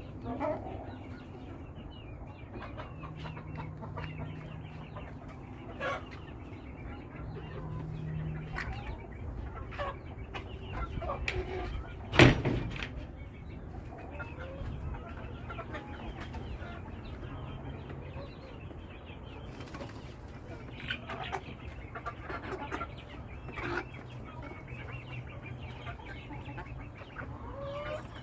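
A flock of chickens clucking and calling in short scattered notes, with one loud sudden thump about twelve seconds in.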